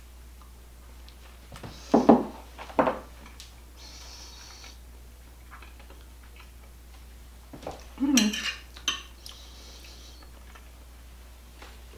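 Dinner plate and fork clinking and scraping: the plate is set down on the table and the fork taps and scrapes on it, in short clusters about two seconds in and again about eight seconds in.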